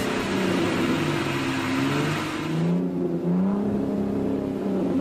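Car engine sound effect, revving with its pitch slowly rising and falling. A background hiss drops out a little before three seconds in.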